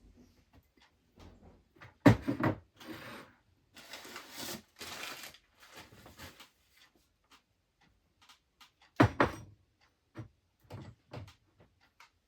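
Household handling noises: a loud knock or bang about two seconds in and another about nine seconds in, with a stretch of rustling or scraping between and scattered small clicks.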